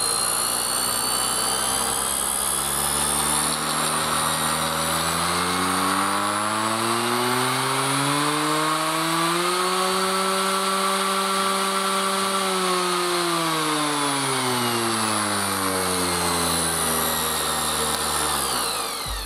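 Stanley FatMax FME440K 480 W random orbital sander running unloaded in the air. Its motor pitch climbs over several seconds, holds at top speed, then falls slowly and stops near the end.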